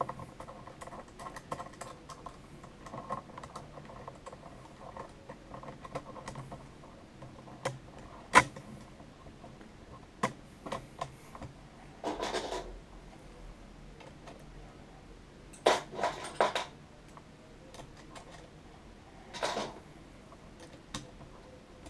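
Small metal screws and nuts clicking and rattling against the clear acrylic plates of a 3D printer's LCD enclosure as they are fitted and turned by hand: scattered light clicks, one sharper click, and a few short rattling scrapes in the second half.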